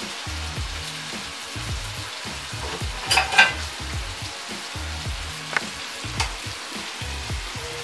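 Food frying and sizzling in a pan, with a loud metallic clatter of a utensil against the pan about three seconds in and two short clicks later.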